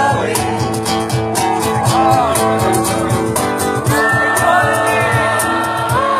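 Song playing between sung lines: guitar accompaniment with a steady beat, and a lead melody that bends and holds long notes.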